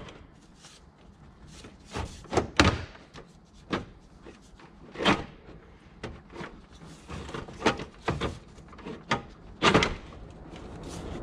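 Irregular knocks and clunks as a front-mount intercooler and its charge hoses are pushed and worked into place under a car's front bumper. The sharpest knocks come about two and a half seconds in and near the end.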